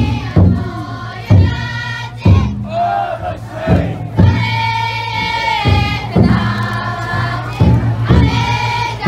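Futon daiko festival float's taiko drum, beaten about once a second in heavy, steady strokes. A crowd of bearers chants and calls in long held voices between the beats.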